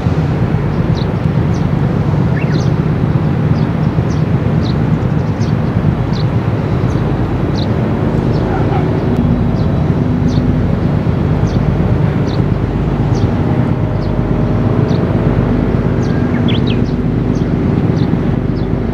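Steady low engine rumble from tugboats working hard to turn a large warship, with a few steady engine tones rising above it about halfway through. Many short, high bird chirps sound over it.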